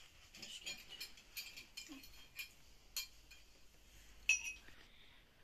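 Spoons and forks clinking and scraping on china plates during a meal: a string of light clicks, with one sharp ringing clink about four seconds in.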